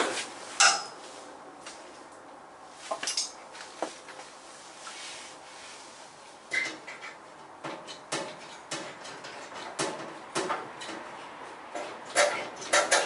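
Irregular metallic knocks and clanks, a dozen or so sharp single hits, of a clamp and tools being handled against a Classic Mini's steel rear bulkhead panel as it is clamped up.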